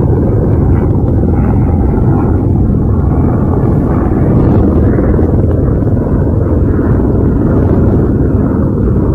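Wind buffeting an outdoor microphone: a loud, steady low rumble.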